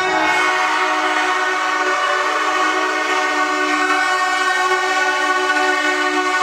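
Spectators' horns blown in one long, unbroken blare, a held pitched tone with its overtones.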